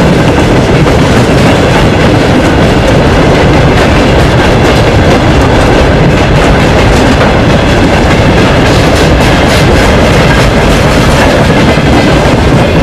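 Freight wagons (covered mineral hoppers, then open gondolas) rolling past close by: a loud, steady rumble of steel wheels on rail, with wheels clicking over rail joints, the clicks more distinct in the second half.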